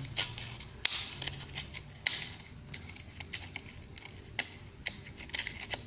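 A hand tool scraping and tapping at corrosion deposits on the cylinder walls of a water-damaged Alfa Romeo GTV engine block, in irregular scrapes and sharp clicks, with a few longer scraping strokes about two seconds in and near the end.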